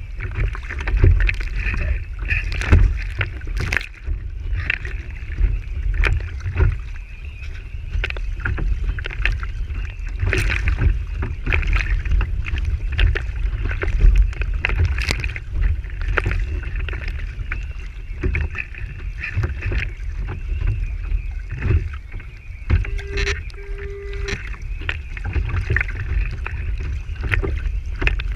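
Water rushing and slapping against the hull of a Lintel IOM radio-controlled sailboat under sail, heard from a camera on its stern, with a steady low rumble and many short, sharp splashes of spray and chop hitting the boat.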